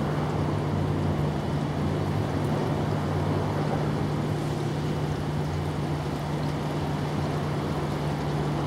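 Steady machine hum: a constant low drone over an even rushing noise, unchanging throughout.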